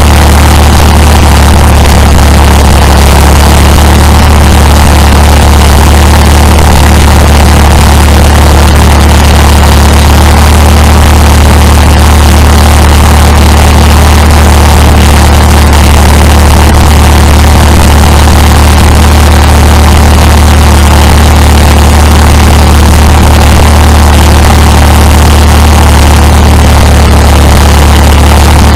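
HTZ T-150K tractor's SW-680 six-cylinder diesel running steadily as the tractor drives, very loud and close to the microphone, with a strong low drone that holds at an even pitch.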